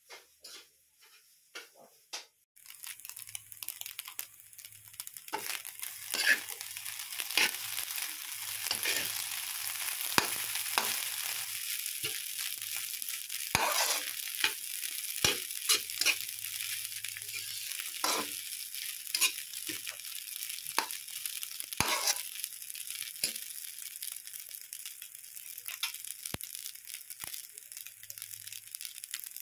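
Rice and egg frying in a steel wok, a steady sizzle that starts about two and a half seconds in after a few light clicks. A metal spatula scrapes and taps against the wok many times as the rice is stirred and tossed.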